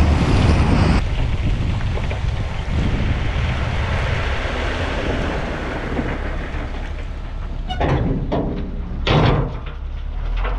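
A tractor-drawn tipping trailer dumping a load of stone rubble, with a steady rushing noise of the tractor running and the load sliding out. Several clattering knocks come near the end, one louder than the rest. For the first second, a steady tractor-engine hum from inside the cab is heard before the sound cuts.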